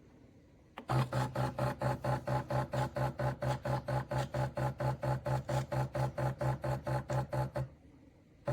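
Espresso machine's pump humming in rapid on-off pulses, about four to five a second, starting about a second in and stopping shortly before the end.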